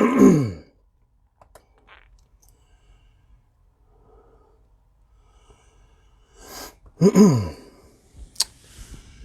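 A man's voice gives a short sigh-like sound with falling pitch, preceded by a breathy rush, among a few faint clicks and one sharp click near the end; otherwise quiet room.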